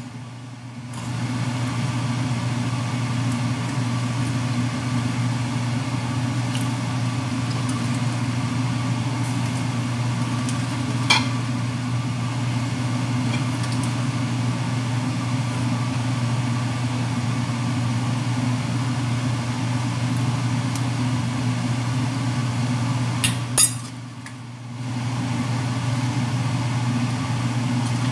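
A steady low mechanical hum in a kitchen, with a few light clinks as bamboo shoot pieces go into a steel pot. The hum drops out briefly twice.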